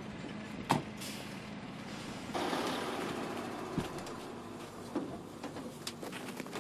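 Military truck engine running steadily. A sharp clank comes under a second in and is the loudest sound, a rush of noise starts about two and a half seconds in, and scattered knocks and quick footsteps come toward the end.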